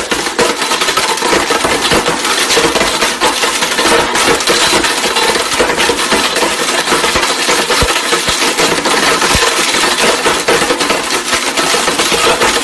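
Blendtec blender running at full speed with an iPhone inside, the phone's glass and metal pieces clattering and grinding against the plastic jar in a loud, dense, steady rattle.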